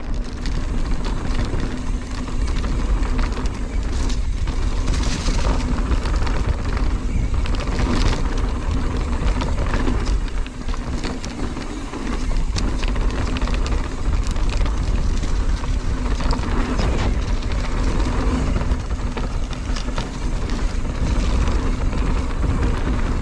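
A mountain bike rolls fast down a dirt trail: wind buffets the action camera's microphone, knobby tyres run over dirt and leaves, and the bike rattles over bumps.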